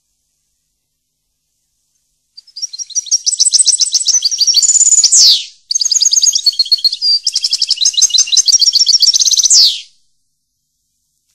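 A songbird singing two long phrases of fast trills and quick repeated chirps, each ending in a rapid downward sweep, with a short pause between them.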